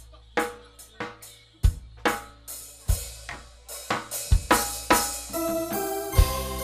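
Live band's drum kit playing spaced kick, snare and cymbal hits as a song intro. Sustained keyboard chords come in about five seconds in.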